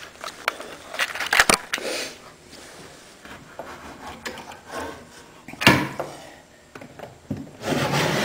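Knocks and handling noises, then wood rubbing and scraping on wood as a hidden wooden drawer is worked loose and slid out of the front of an antique tool chest, with a longer scrape near the end.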